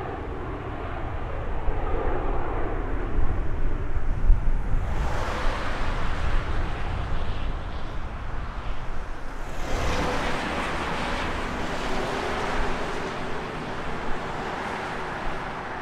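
Jet engines of a wide-body airliner at takeoff thrust during a departure: a steady, loud rumble with a noisy hiss above it. The sound shifts abruptly about five and about ten seconds in.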